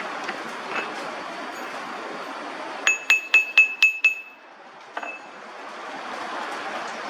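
Metal striking metal: about six quick ringing clinks, all at the same pitch, over a steady background hiss, then a single clink about a second later.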